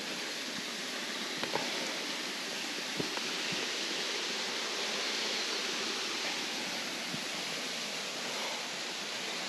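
Steady rushing of falling water from a woodland waterfall and its stream, with a few faint ticks over it.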